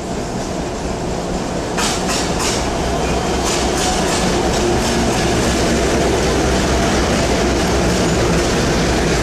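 Indian Railways passenger train pulling into a station behind its locomotive. There is a steady low engine drone, and from about two seconds in the wheels click over the rail joints, growing louder as the locomotive and coaches pass close by.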